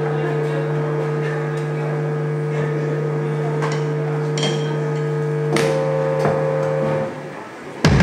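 Synthesizer holding one low note as a steady drone, with a few light clicks over it. The drone stops about seven seconds in, and a drum kit kicks in just at the end.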